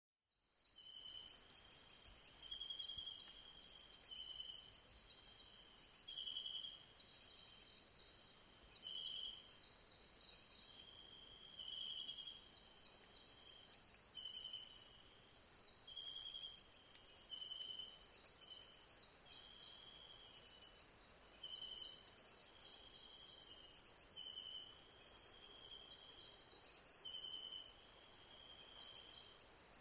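Insects trilling: one steady, high, unbroken trill, with shorter chirps at a lower pitch repeating about once a second.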